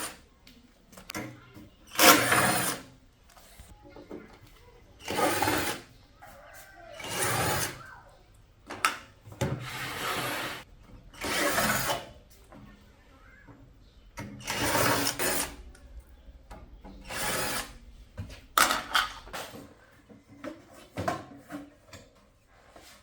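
A power tool run in short bursts of half a second to a second, about a dozen times at irregular intervals.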